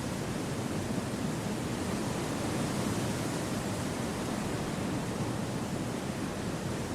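Gentle wind through forest trees: a steady, even rushing noise with no gusts or lulls.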